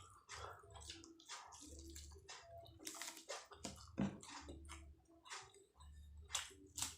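A person chewing a mouthful of martabak telur (egg martabak) with chillies, with many short, irregular mouth clicks and smacks.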